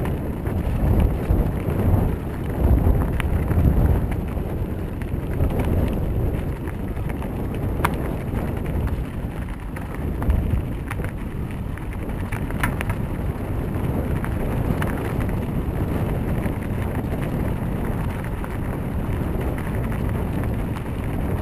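Wind buffeting an action camera's microphone during a bicycle ride, with a steady low rumble from the tyres and a few sharp clicks and rattles from the bike. The buffeting comes in stronger gusts over the first few seconds.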